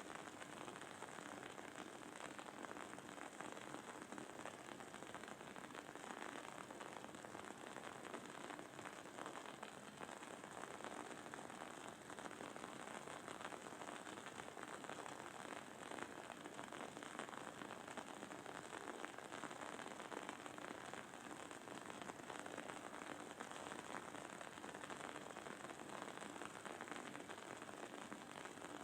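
Wooden candle wick crackling steadily as it burns: a faint, dense stream of tiny pops and sizzles.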